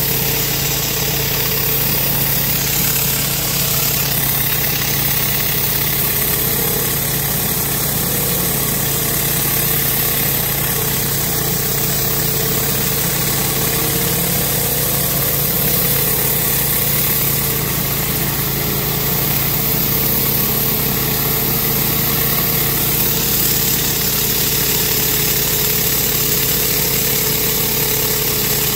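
Pressure washer's engine running steadily under the continuous hiss of high-pressure water spraying from a rotary surface cleaner onto concrete.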